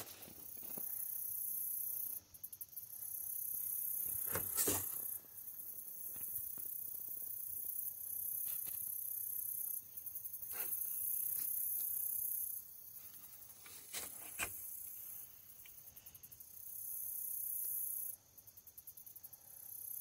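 Insects trilling in a high-pitched chorus that stops and starts every few seconds, some stretches pulsing rapidly. A few sharp knocks, the loudest about four and a half seconds in and another near fourteen seconds.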